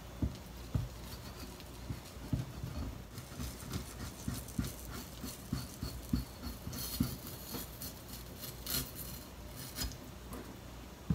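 Chef's knife tapping and scraping on a plastic cutting board as the skin and bones are worked off a salmon fillet: irregular soft knocks, with a run of scraping strokes in the middle.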